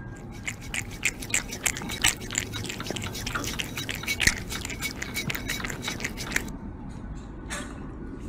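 Kitten licking and smacking at a feeding syringe: a rapid, irregular run of small mouth clicks that stops about six and a half seconds in.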